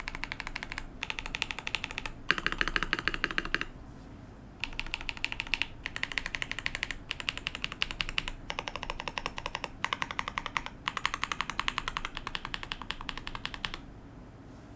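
Fast typing on a KBD67 Lite mechanical keyboard with a polycarbonate plate, lubed and filmed Tecsee Purple Panda tactile switches and Akko PBT keycaps: dense runs of keystroke clacks in bursts, with a pause of about a second partway through. The typing stops about a second before the end.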